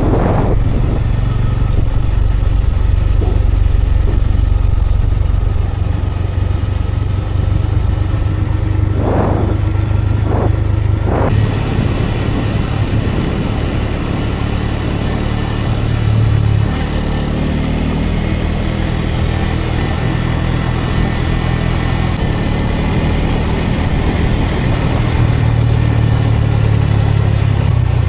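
Bajaj Pulsar N250's single-cylinder engine running steadily while riding, its pitch shifting about two thirds of the way through as the throttle changes. Three brief clicks come around a third of the way in.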